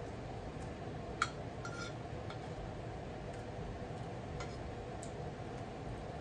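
Fork and knife clinking and scraping on a plate as food is cut: a few light clinks, the sharpest about a second in, over a steady low background hum.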